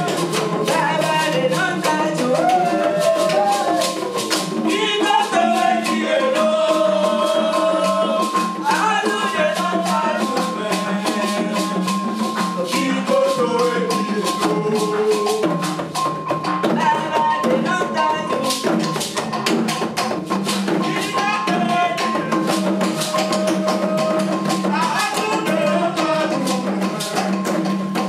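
Live Beninese band music: several voices singing over fast hand drums, a shekere gourd rattle shaken in a quick steady rhythm, and hand clapping.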